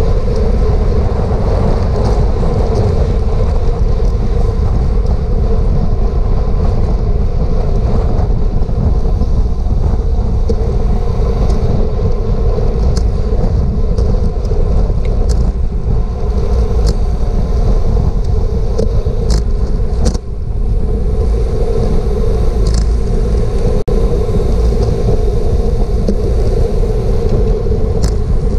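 Wind rushing over a bicycle-mounted action camera's microphone while racing on a road bike, with a steady hum underneath and a few short high ticks.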